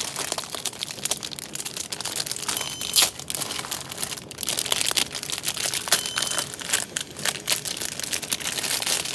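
Plastic bag crinkling and crackling as a new hard drive is unwrapped by hand. Twice, a short high beep cuts through from the NAS's alarm, which sounds because a drive has been deactivated and the RAID volume is degraded.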